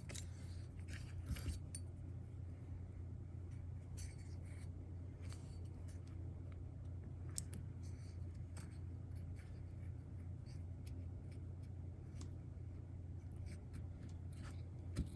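Scattered small metallic clicks and light taps from handling valve parts on a small engine's cylinder head, over a steady low hum, with one sharper click about seven seconds in.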